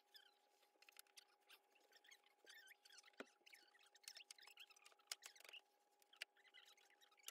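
Near silence: faint scattered clicks and small squeaks over a faint steady hum, with one sharper knock about three seconds in.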